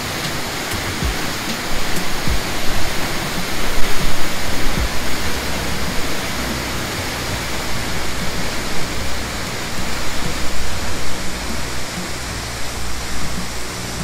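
Waterfall pouring: a loud, steady rush of falling water with a low rumble underneath, swelling louder around four seconds in.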